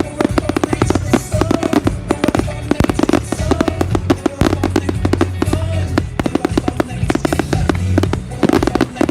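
Fireworks going off in quick succession, many sharp bangs and crackles every second, over loud music with a heavy bass line.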